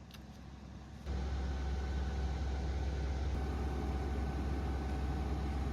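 Bulldozer's diesel engine idling steadily, its low drone stepping up in loudness about a second in.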